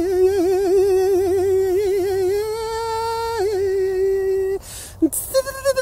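A man's voice holding a long wordless tone that wavers up and down in pitch. It steps up a little about two seconds in, drops back, and breaks off after about four and a half seconds. A breath follows, then a new higher vocal sound starts near the end.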